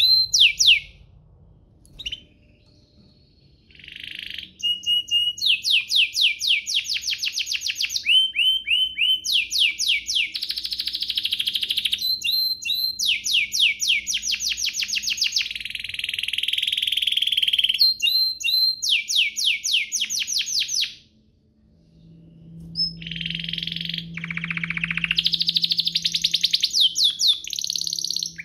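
Domestic canary singing a long, fast song of rapidly repeated notes and rolling trills, broken by brief pauses about a second in and again near two-thirds of the way through.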